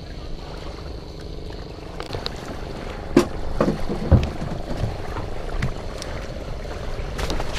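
Motor boat's engine running with a steady low rumble. A few sharp knocks and thumps come about three to four seconds in.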